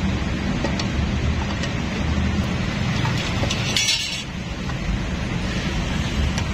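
Metal kickstarter gear and coil return spring being handled and seated in a scooter's crankcase cover: a few faint metal clicks and, a little under four seconds in, a brief metal-on-metal clink. A steady low background rumble runs underneath.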